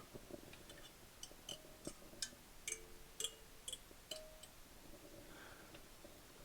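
A run of light clicks and taps from objects being handled during unpacking, some with a brief faint ring, mostly in the first two thirds.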